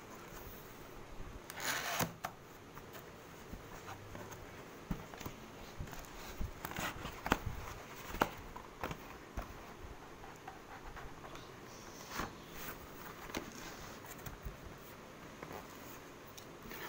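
Cardboard laptop box and its cardboard end inserts being handled: scraping and rustling with scattered sharp clicks and knocks as the packing is moved about.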